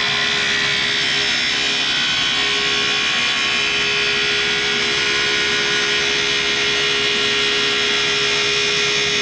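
Vintage Cincinnati tool and cutter grinder running a 6-inch diamond parting wheel at 4500 rpm, cutting steadily through thick carbide. A steady high grinding hiss over the machine's steady running tone.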